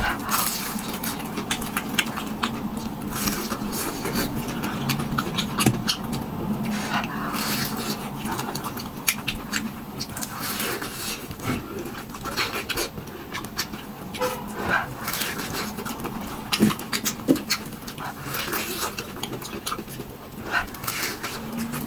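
Close-miked chewing and crunching of crisp, spicy food, with many irregular crackles, and heavy breathing between bites.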